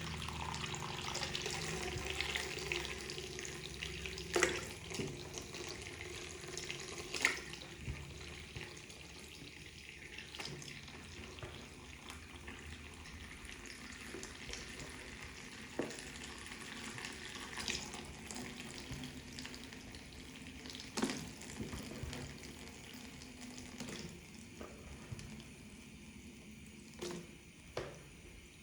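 Soapy makeup sponges being squeezed and worked in water: a steady wet, fizzing crackle of lather with occasional sharper wet pops.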